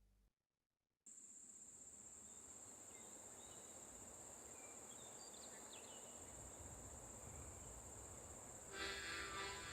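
Faint meditation background track: after a brief gap, a steady high cricket-like chirring with a few short chirps comes in about a second in, and soft music enters near the end.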